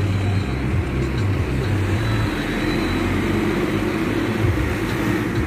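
Car driving along a street, heard from inside the cabin: steady engine and tyre rumble.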